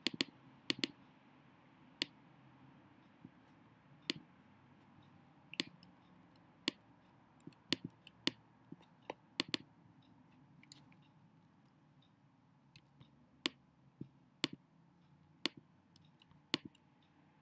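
Sharp, irregular clicks of a computer pointing device as on-screen drawing tools are used, several coming in quick pairs.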